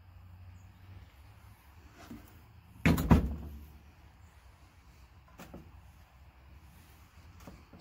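A door shutting with a sharp double clunk about three seconds in, over a low steady hum, with a few faint clicks later.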